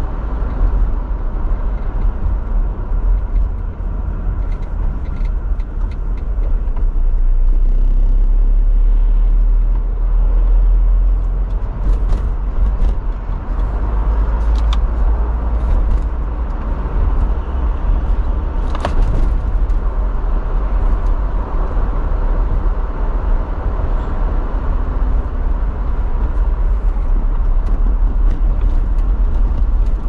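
Car cabin noise while driving: a steady low rumble of engine and tyres on the road, with a few brief sharp clicks or knocks, the clearest about two-thirds of the way through.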